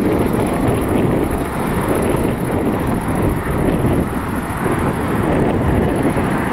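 Distant jet engines of a Boeing 757-200F freighter running on the ground, a steady rumble mixed with gusty wind buffeting the microphone.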